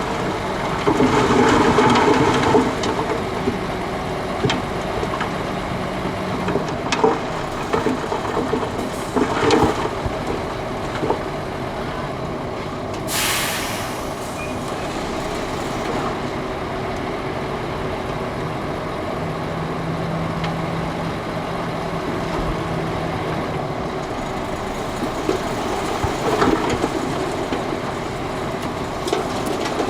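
Shantui DH17 crawler bulldozer working soil: the diesel engine runs steadily under the clanking and squealing of its steel tracks, with a short burst of hiss about 13 seconds in.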